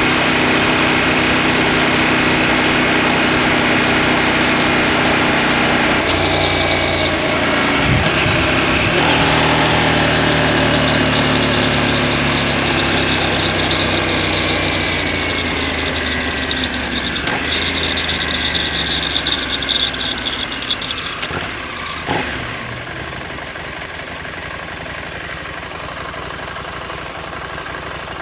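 KTM 790 Adventure's parallel-twin engine and chain drive running at a steady speed, then winding down with a falling pitch and settling to a quieter idle after a click about 22 seconds in. This is the deceleration noise the owner traced to a chain adjusted too tight.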